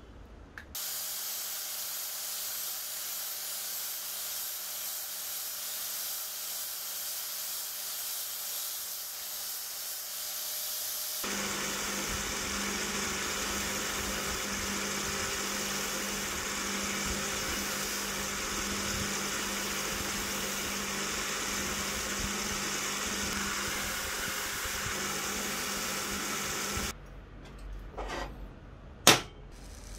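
Bench grinder's wire wheel running with a steady hiss over a low motor hum, scrubbing corrosion off a small brass pipe fitting; the sound grows louder and fuller about eleven seconds in. It stops abruptly a few seconds before the end, followed by a few light clicks and one sharp click.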